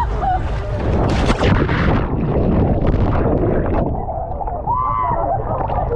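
Sea water sloshing and splashing around a camera held at the waterline, with a loud splash about a second in. From about four seconds in the sound turns muffled, as the camera dips under the surface.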